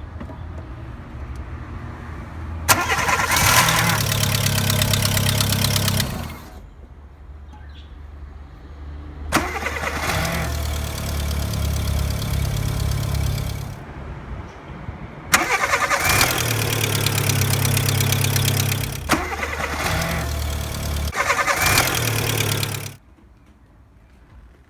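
Starter motor of a VW Polo 6N cranking in four bursts of about four seconds each, every one opening with a sharp click, with a loud grinding whir and a steady low hum between bursts. It is the sign of a faulty starter that engages unreliably and keeps spinning on, which the owner traces to the starter and its solenoid.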